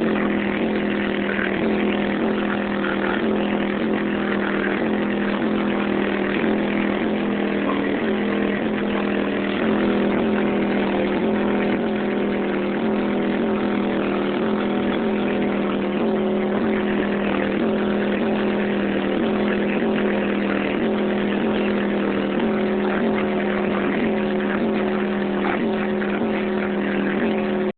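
Hip-hop track played loud through a 12-inch Treo SSX car subwoofer, its bass line repeating steadily and heard as a distorted buzz through a cellphone microphone.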